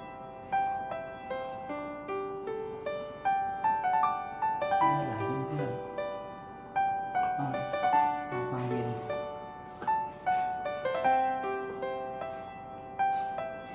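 Background piano music: a gentle melody of single struck notes in a steady rhythm.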